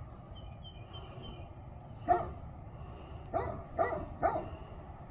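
A dog barking four times in short single barks: once about two seconds in, then three in quick succession near the end, over a steady background rush.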